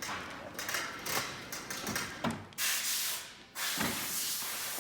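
Handling noise as a heavy massage chair is slid onto furniture moving carts: scuffing and a few light knocks, then a steady hiss from about halfway through.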